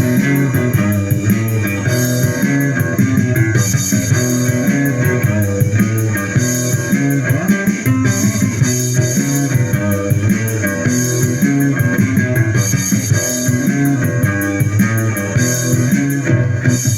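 Instrumental rock music led by guitar over bass and drums, with a steady beat.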